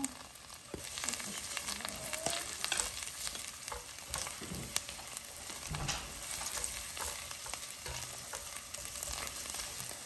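Chopped garlic and onion sizzling in hot oil in a pan while being stirred, with a steady frying hiss and short scattered clicks of the utensil against the pan.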